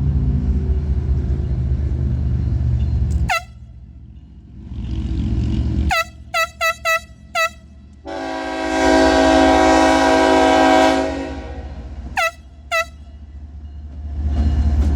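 BNSF freight locomotive's air horn giving a horn show. There is a short toot about three seconds in, a rapid string of short toots around six seconds, one long blast of about three seconds, then two more short toots and another blast near the end. A low rumble of the train runs before the first toot and between the blasts.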